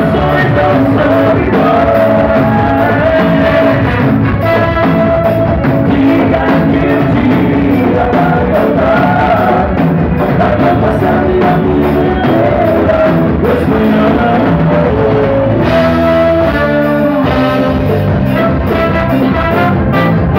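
Live band playing loud through a PA: electric guitar, drum kit, keyboard and horns, with a steady beat under held melody notes.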